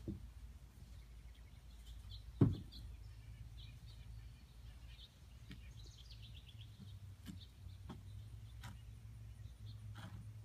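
Outdoor quiet with small birds chirping and a falling trill of notes around six seconds in, over a faint steady low hum. A single sharp thump comes about two and a half seconds in, with a few lighter knocks later.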